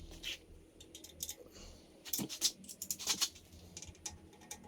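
A few light clicks and clinks of metal hand tools being handled, a tool picked out to undo the bolts of an exhaust's dB killer, with a cluster of clicks a couple of seconds in.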